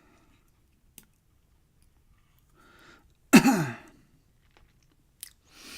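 A man's short throat-clearing, cough-like sound about three seconds in, falling in pitch, with a faint click about a second in and a breathy hiss near the end.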